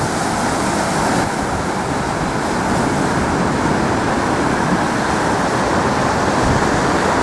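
Steady rush of ocean surf breaking along a rocky shore, heard with outdoor wind.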